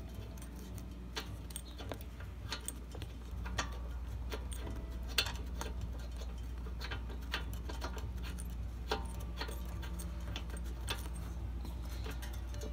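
Spark plug being unscrewed by hand from a Predator 212cc engine, giving irregular light metallic clicks and ticks as fingers turn it and the threads work loose.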